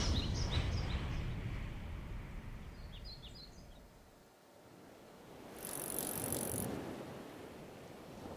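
Aeroplane engine sound effect fading away as it flies off, with a few short bird chirps. About six seconds in comes a brief rush of noise with a hiss on top.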